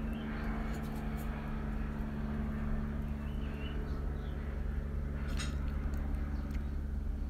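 Steady low mechanical hum, with a few short faint bird chirps and a single light click about five seconds in.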